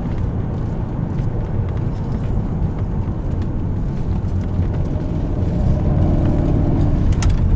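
Ambulance driving, heard from inside the cab: a steady low engine and road rumble with scattered light rattles and knocks.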